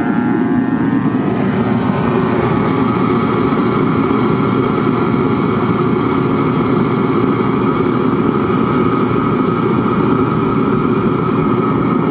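Reddy Heater R50A 50,000 BTU kerosene torpedo heater running with its burner lit: a steady roar of forced air and flame, with a steady whine above it. It is burning continuously on a new photocell instead of shutting off after a few seconds.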